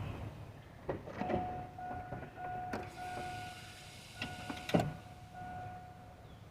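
A faint, steady electronic chime tone repeating on and off, typical of a vehicle's dashboard warning chime, with several sharp clicks and knocks in between; the loudest knock comes near the middle.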